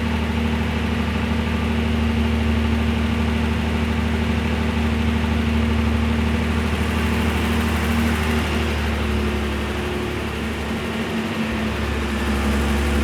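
BMW 7 Series 3.2-litre straight-six engine running at a steady speed, an even drone with a slight change in its low note near the end.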